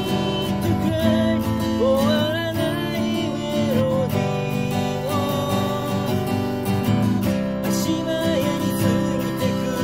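Steel-string acoustic guitar strummed in chords, with a voice singing a melody over it.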